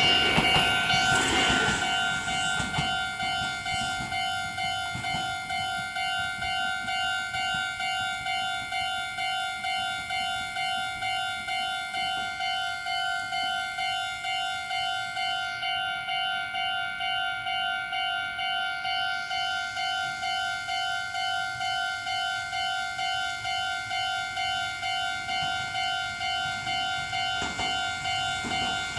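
Japanese level-crossing warning bell ringing: an electronic alarm tone repeating in an even rhythm. Over the first couple of seconds the noise of a passing electric train dies away under it.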